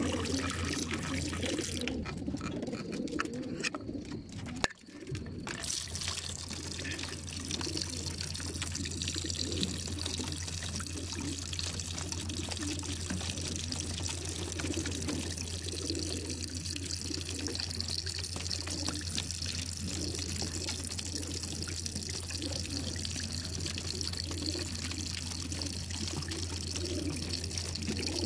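Water running and trickling steadily along the long drinking trough of a pigeon transport trailer, over a constant low hum. The sound dips briefly about five seconds in.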